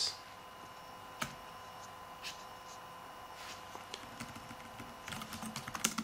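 Typing on a ZAGGKeys Folio Bluetooth keyboard: a few widely spaced keystrokes, then a quicker run of key clicks near the end. A faint steady tone runs underneath.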